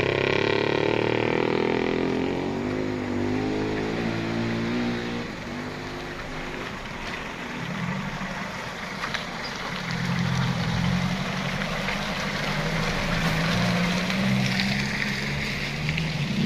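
Mitsubishi pickup truck's engine working hard under load on a muddy slope, its pitch falling over the first few seconds, then holding a steady laboring note.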